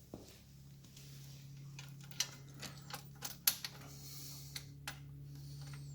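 A scattered run of sharp small clicks and taps, the loudest about three and a half seconds in, from metal hardware and hand tools being handled while exhaust parts are fitted loosely to a motorcycle. A steady low hum runs underneath.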